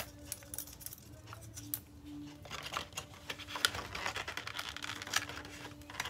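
Scissors snipping through a cardboard doll box, with the box's paperboard crackling and rustling in the hand: a scatter of small clicks and crinkles that grows busier about halfway through.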